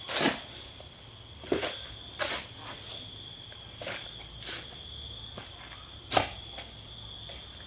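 A long-handled digging tool's metal blade scraping and scooping into packed dirt, about six strokes at uneven intervals, the loudest near the start and about six seconds in. Under it, insects keep up a steady high-pitched drone.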